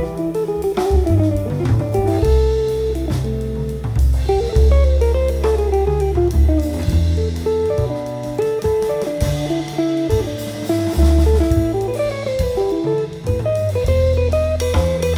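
Small jazz group recording: guitar playing a melodic line over acoustic bass and drums.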